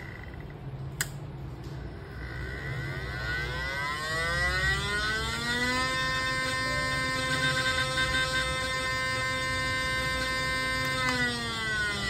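Small DC motor held against the controller's casing, its buzzing whine rising in pitch over about four seconds as the PWM speed controller soft-starts it, holding steady at full speed, then falling near the end as it soft-stops. A sharp click about a second in.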